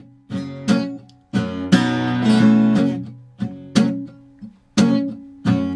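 Acoustic guitar strummed in chords, a stroke or a short burst of strokes at a time, some ringing on and some dying away before the next.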